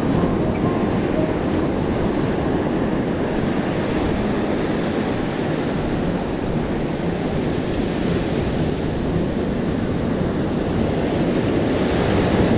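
Steady ocean surf on the beach, with wind rumbling on the microphone.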